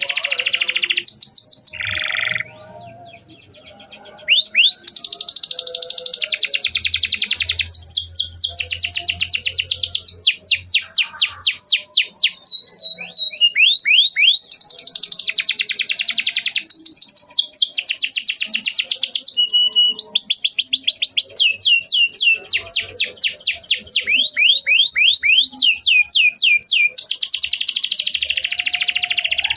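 Domestic canary singing a long, fast song of rapid repeated chirps and trills, with a brief pause about two seconds in.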